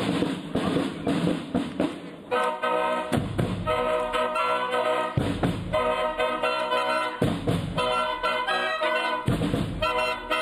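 A Schalmei marching band playing: drumming for the first couple of seconds, then the band's multi-horn Schalmeien come in with loud sustained chords over a drum beat.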